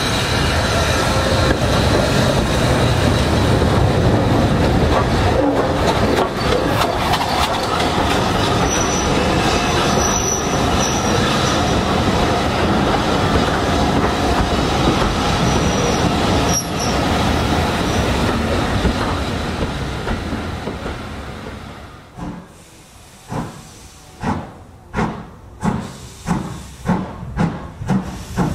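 BR Standard Class 5MT steam locomotive moving with loud, steady wheel and rail noise, fading about three-quarters of the way through. It is followed by the exhaust beats of the locomotive starting away, slow at first and quickening toward the end.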